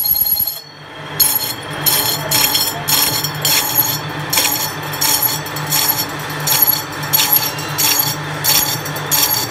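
Metal lathe cutting a large spinning steel disc: the tool scrapes the metal with a sharp tick about twice a second, after a brief drop in sound near the start.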